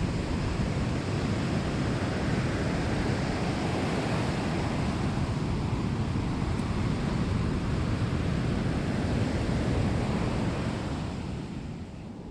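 Ocean surf washing steadily onto a sandy beach, with wind rumbling on the microphone; it eases slightly near the end.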